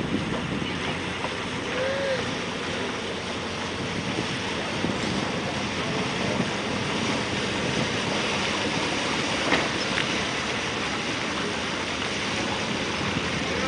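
Steady wash of wind and water noise, with no distinct engine note or speech.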